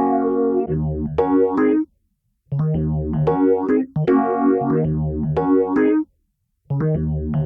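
Electric piano played through a Cratere plugin preset, in short phrases of chords and melody notes. Each phrase breaks off abruptly, leaving two brief silent gaps, about two seconds in and about six seconds in.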